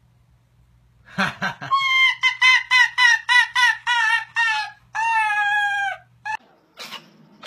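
Small white canine giving a quick run of short, high-pitched yelping calls, about three a second, each bending down in pitch at its end. These are followed by one longer call and a last short one.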